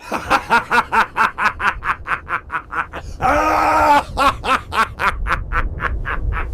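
Theatrical evil villain laugh, a mad-scientist cackle: a rapid run of 'ha' pulses, about four or five a second. About three seconds in, it breaks into one long held cry. The pulses then resume and grow gradually quieter.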